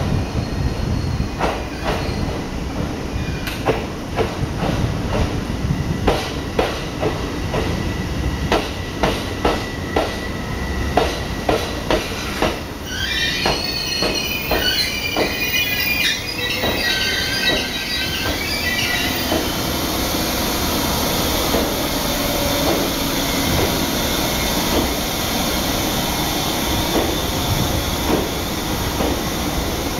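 Electric train pulling slowly into the platform: wheels clack over rail joints in a run of sharp clicks. About halfway through, the wheels squeal high for several seconds, then the sound settles into a steady rumble of the moving train.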